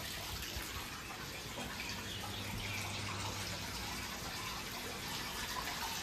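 Water draining out of a Samsung top-load automatic washing machine at the end of its wash stage, a steady flow of water.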